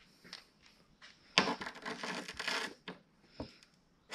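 A rubber hydraulic hose with a steel crimped fitting being handled and laid down on a workbench: a scraping rustle lasting about a second and a half, starting a little over a second in, followed by a couple of light knocks.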